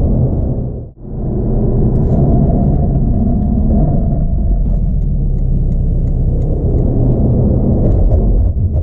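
Sports car engine and exhaust running with a steady, deep rumble. The sound drops out sharply for a moment about a second in.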